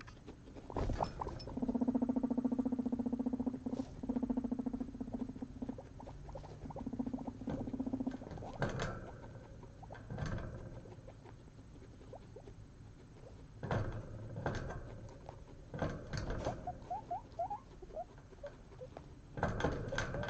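Guinea pigs in paper bedding and hay: a low buzzing rumble about two seconds in, in three stretches over some six seconds, then scattered rustling and chewing, and a quick run of short rising squeaks past the middle.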